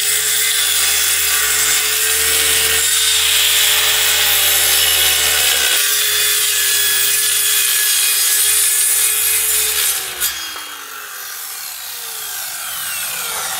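Corded circular saw cutting through a plywood floor panel: a loud, steady motor whine with the blade's rasp through the wood for about ten seconds. It is then switched off and the blade spins down with a falling pitch.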